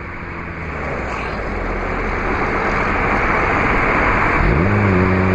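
Road noise from a vehicle driving at highway speed, a steady rushing with an engine hum under it, swelling up over the first couple of seconds. About four and a half seconds in, an engine note rises in pitch and then holds steady.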